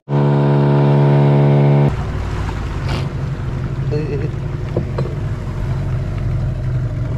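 A loud, steady horn-like tone lasting nearly two seconds that cuts off sharply, then a boat's engine running steadily.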